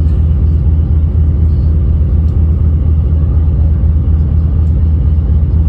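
Steady low rumble of a ferry's engines, heard on board, even in level throughout.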